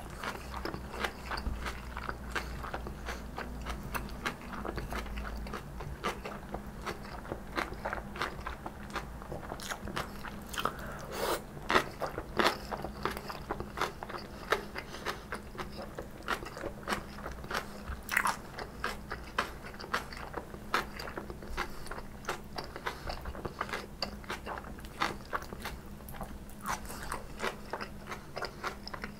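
A person chewing crisp stir-fried kimchi: a steady run of crunches and small crackles, with a few louder crunches around the middle.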